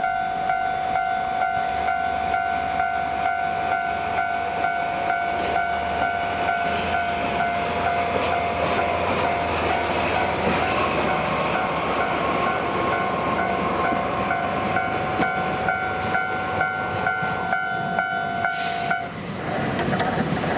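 Japanese level-crossing warning bell ringing steadily, cutting off suddenly about 19 seconds in, over a train rolling past with rumbling, clattering wheels.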